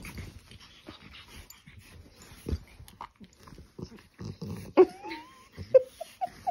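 A pug and a golden retriever play-wrestling: a string of short low huffs and scuffles, then about five seconds in a loud whine that slides upward, followed by a few short high yelps.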